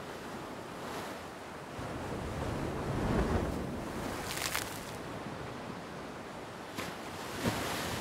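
Ocean surf breaking and washing up the beach in a steady rush of noise, swelling about three seconds in, with a short hissing splash just past the middle.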